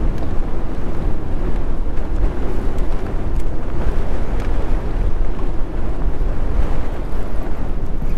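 Wind buffeting the microphone in a steady, loud rumble, over the wash of choppy lake water around a small fishing boat.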